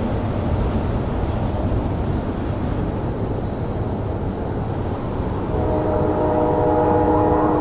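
Train rumbling low and steady, then a locomotive horn sounds a held multi-note chord starting about five and a half seconds in.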